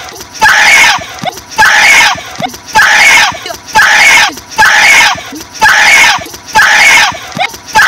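A young boy's voice screaming loud, high-pitched yells, about seven in a row, each well under a second and evenly spaced about once a second.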